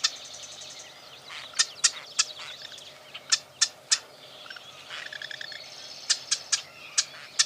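Marsh wren calling: sharp, dry ticking notes in quick groups of two to four, with a short buzzy rattle about five seconds in, over faint chatter of other birds.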